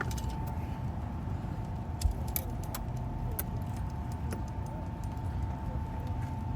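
A car's engine running with a steady low rumble and a faint steady whine, with scattered light clicks and rattles over it.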